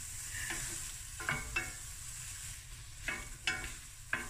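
Onions and mixed vegetables frying in butter in a stainless steel pan, with a steady sizzle, stirred with a wooden spoon that scrapes across the pan several times. The onions are sweating down.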